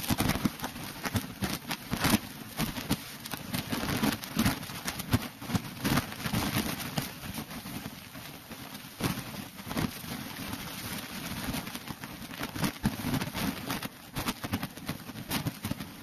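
Water of a small waterfall splashing down a rock face into a pool: an uneven hiss with many sharp, irregular crackles and a low rumble underneath.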